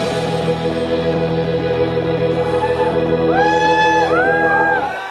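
Closing bars of a K-pop dance track: a held organ-like keyboard chord, with two sliding high notes over it in the last two seconds, fading slightly at the end.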